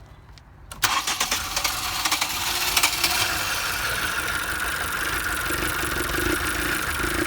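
2011 Ford Transit Connect engine cranked on the starter, catching about a second in, then settling into a steady idle. The mechanic suspects a clogged catalytic converter.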